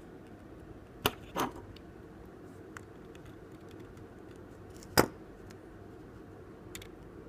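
Small hard clicks and taps of tools and phone parts handled on a workbench: a sharp click about a second in, followed at once by a short scrape, and a louder click about five seconds in, with a few faint ticks between. A steady low hum runs underneath.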